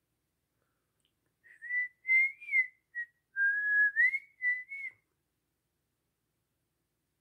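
A person whistling a short, wavering tune of several notes, starting about a second and a half in and stopping after about three and a half seconds.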